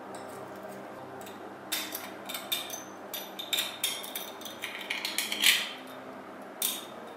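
A pointed metal tool scraping, picking and clicking against the rusted tin parts of an old oil lamp, prying at corroded metal. The scrapes are irregular and begin a little under two seconds in, the loudest about five and a half seconds in.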